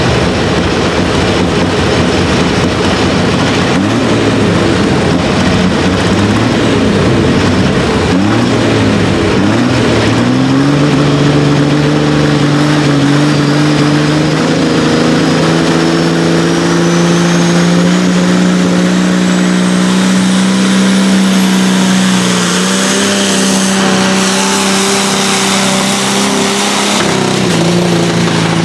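Fiat pulling tractor's diesel engine revving unevenly at first, then held at high, steady revs under full throttle, with a thin high whistle rising steadily in pitch partway through.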